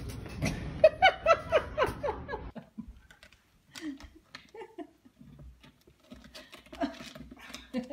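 A small dog yipping in a quick run of short cries, each falling in pitch, over a steady hiss that cuts off suddenly about two and a half seconds in; fainter scattered sounds follow.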